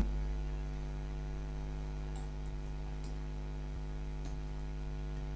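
Steady electrical mains hum picked up by the recording, a stack of even buzzing tones, with a few faint clicks.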